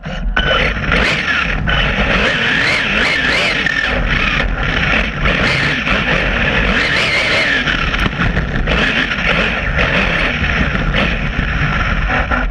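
High-speed 1/8-scale RC buggy running on a Castle Creations Mamba Monster 2 brushless system: a high electric-motor whine that rises and falls in pitch over loud tyre and rushing noise and a steady low rumble.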